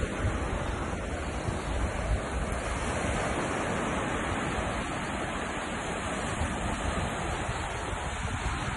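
Sea surf breaking and washing onto a sandy beach in a steady rush, with wind gusting and rumbling on the microphone.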